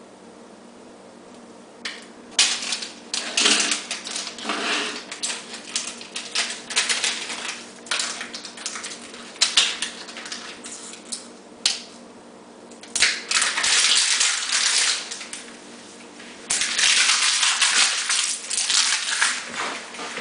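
Utility knife cutting through a foam sheet: runs of crackly scraping with many sharp clicks, pausing briefly about twelve and about sixteen seconds in.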